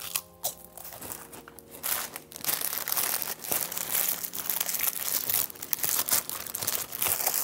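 A white paper takeaway wrapper being crumpled and torn open by hand. The crinkling gets busier and louder about two seconds in.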